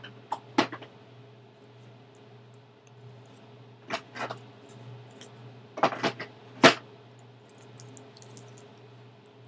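Hard plastic clicks and knocks of camcorder equipment being handled: three quick clicks at the start, two about four seconds in, and a cluster around six to seven seconds in, the last one the loudest.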